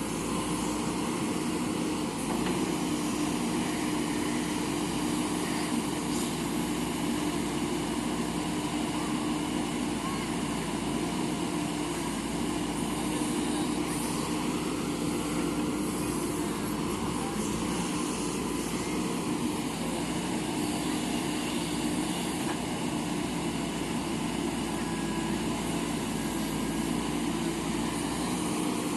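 JCB backhoe loader's diesel engine running steadily under work, a constant drone with an even hum.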